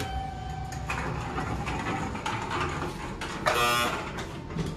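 Elevator push buttons being pressed. The call button gives a click and a steady beep of about a second as it lights. About three and a half seconds in, a short, louder beep comes as a floor button is pressed inside the car.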